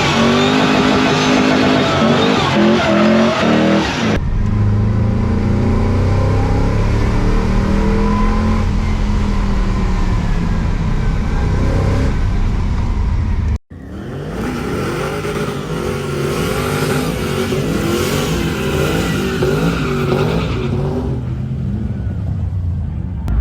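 Holden VY Commodore SS's 5.7-litre V8 being driven hard, revving and accelerating, its pitch rising and falling through the gears. The sound comes in separate clips, with abrupt cuts about four seconds in and again past halfway.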